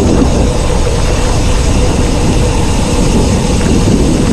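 Wind buffeting the microphone of a bicycle-mounted camera while riding, a loud, rough, steady rumble heaviest in the low end, with the bike's tyres rolling on the road underneath.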